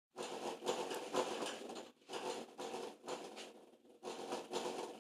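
Subwoofer making an unwanted crackling, popping noise in bursts of a second or so with short breaks between them, the fault behind the question of why it pops.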